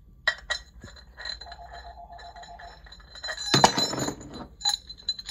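Metal clinking and scraping from a sewing-machine servo motor's mounting bracket and bolt being handled and fitted together: scattered clicks, a short run of rapid even ticks in the middle, and a louder rattling scrape about three and a half seconds in.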